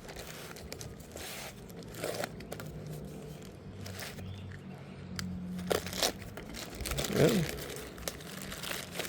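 Parcel packaging being opened by hand: irregular crinkling and rustling of the wrapping, with a few sharper crackles.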